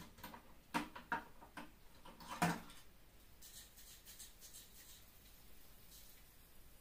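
Butane canister of a portable gas stove being unlatched and pulled out, a few sharp metal clicks and clunks in the first two and a half seconds, the last the loudest. It is then shaken to judge how much gas is left, a faint rapid rattle for about two seconds.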